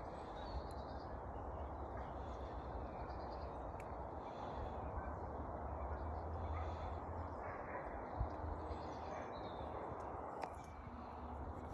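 Wild birds calling and singing, over a steady low rumble and hiss, with one brief knock about eight seconds in.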